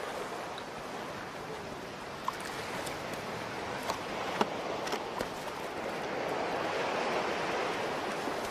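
Surf washing up a sandy beach, a steady rush of water that swells gradually over several seconds, with a few faint clicks in the middle.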